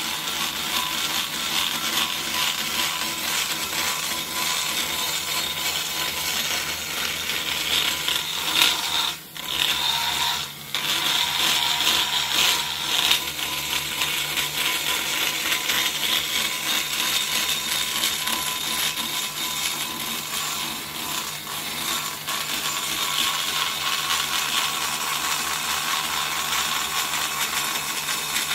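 DeWalt die grinder running at speed with a long-shank burr, cutting metal from the short side radius of a cylinder head port. A steady high-pitched whine and grinding, briefly easing off twice about nine to ten seconds in.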